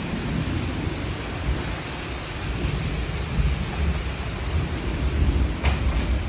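Very strong storm winds gusting, buffeting the microphone with a heavy low rumble over a steady hiss. A short sharp click comes about five and a half seconds in.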